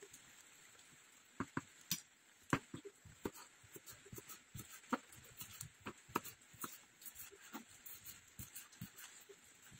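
Kitchen knife slicing spring onions on a plastic chopping board: irregular light taps of the blade on the board, starting about a second and a half in.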